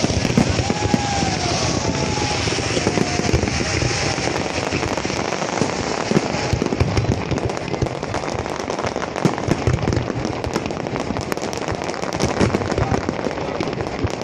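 Fireworks going off in a dense, continuous run of crackles and sharp pops.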